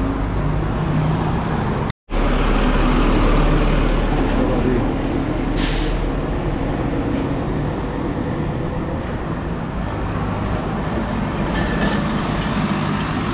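Road traffic passing close by: a pickup, a concrete mixer truck and a van drive past with steady engine and tyre noise. A short hiss comes about six seconds in.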